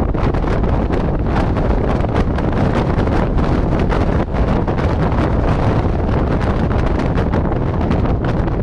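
Wind buffeting the microphone on an exposed mountain ridge: a loud, steady rumbling noise that never lets up.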